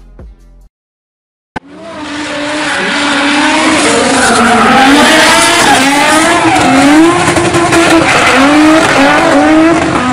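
Drift car at full slide: the engine revs up and down repeatedly, with squealing tyres throughout. It starts suddenly after a second of silence, about one and a half seconds in.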